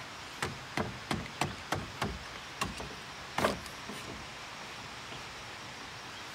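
Wooden boards knocking against the enclosure frame as they are set into place: a quick run of sharp, separate knocks, about eight of them, the loudest about three and a half seconds in.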